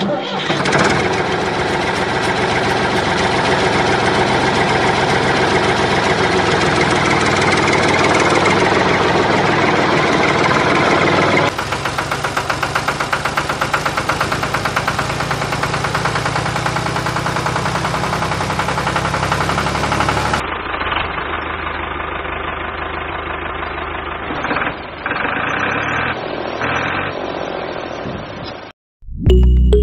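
Tractor-style engine running steadily with a fast, even knock. The sound changes abruptly twice and cuts out briefly near the end.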